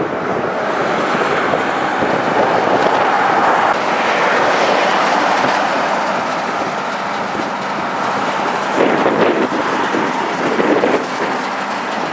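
Motorway traffic going by, a steady rushing noise that swells over the first few seconds and eases off a little later.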